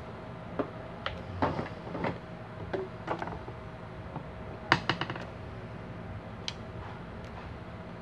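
Irregular light clicks and taps of metal parts and a screwdriver being handled on a fan's electric motor during reassembly, with a few quick clicks together about two seconds in and the sharpest click near five seconds.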